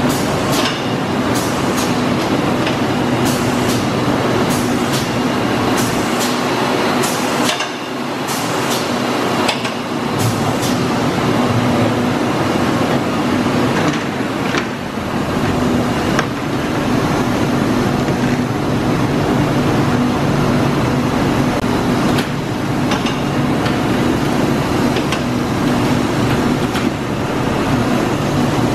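Tromp and Autobake cupcake and muffin production line running: a steady machine hum with a tone in it. Over the hum come repeated clicks and clacks from the conveyors and tray handling, most frequent in the first ten seconds or so.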